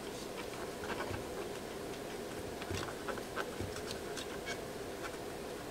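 Cotton swab scrubbing flux residue off freshly soldered wafer-switch connections on a circuit board: faint, irregular scratching with small clicks.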